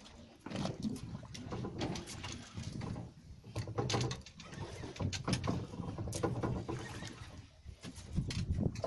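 Choppy sea water splashing and slapping against a small fishing boat's hull, with irregular knocks and a steady low rumble.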